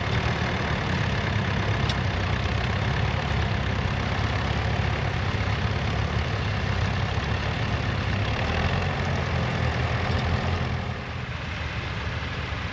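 A vintage tractor's engine running steadily at low revs, its level dropping a little near the end.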